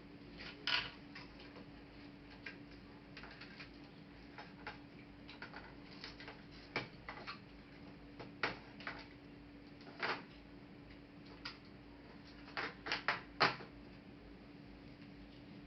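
Irregular clicks and taps of laptop parts and tools being handled during disassembly, with a cluster of four quick clicks near the end, over a steady low hum.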